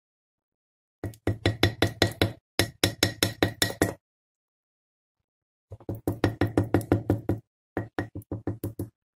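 Wooden spoon knocking rapidly against a glass jar of honey, lemon and ginger, about seven even knocks a second, in four short runs with pauses between.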